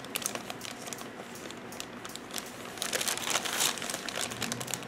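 Clear plastic bag crinkling and crackling as the model kit's plastic sprues are handled inside it, busiest and loudest about three seconds in.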